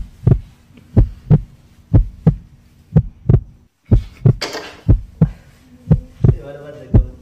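Heartbeat sound effect: paired low thumps in a lub-dub rhythm, about one beat a second, with a brief hiss about four and a half seconds in.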